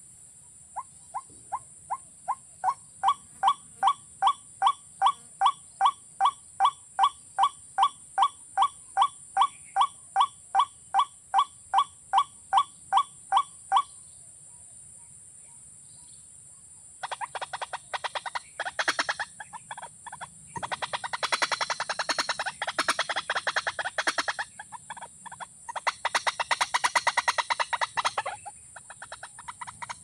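Watercock calling: a long series of evenly spaced notes, about two a second, that grow louder over the first few seconds and stop about 14 seconds in. After a short pause comes a faster, harsher run of rapid pulses in several bouts.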